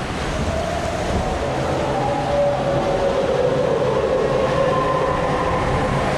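Rushing white water of a river-rapids ride around a moving round raft, a steady rumble with a wavering whine over it.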